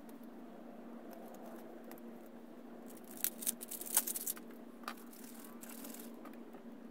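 A can of expanding foam being handled and readied in gloved hands: a quick cluster of clicks and rattles about three seconds in, then a short rustling hiss, over a steady low hum.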